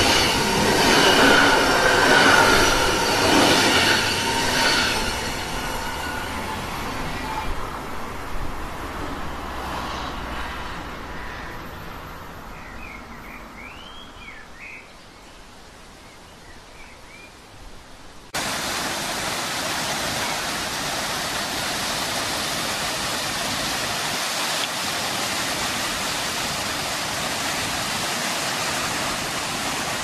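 Electric passenger train running past with steady high tones in its noise, fading away over about fifteen seconds. A few faint bird chirps come as it dies out. At about eighteen seconds the steady rush of a waterfall cuts in suddenly and holds.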